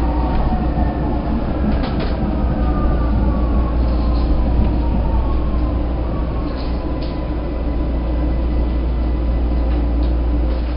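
Vienna U-Bahn train running, heard from inside the car: a deep steady rumble with the electric motors' whine falling in pitch over the first several seconds as the train slows, and a few sharp clacks from the wheels.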